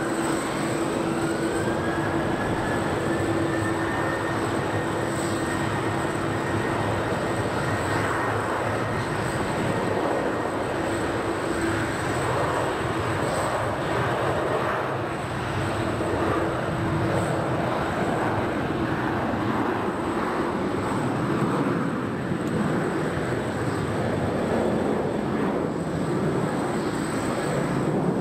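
Jet airliner engine noise: a steady rush with a constant high whine and a low hum. A tone climbs in pitch over the first few seconds, then holds steady.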